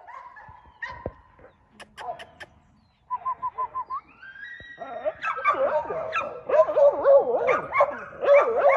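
American pit bull terrier puppy crying on its tether: thin whines at first, a quick run of short yips about three seconds in, then a loud, wavering string of whines and yelps through the second half. A few sharp clicks a second or two in.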